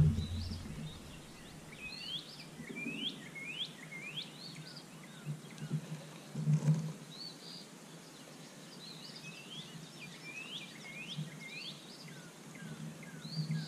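Birds chirping in quick runs of short, curved notes, with a few soft low thumps, the loudest about six and a half seconds in.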